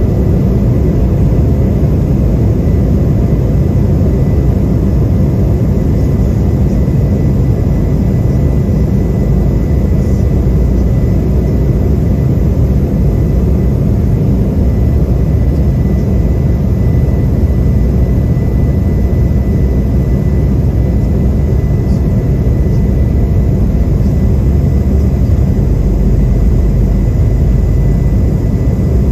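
Cabin noise of an Embraer 175 taxiing, heard from inside: its two General Electric CF34 turbofans run steadily at taxi power as a low, even rumble, with a thin steady whine above it.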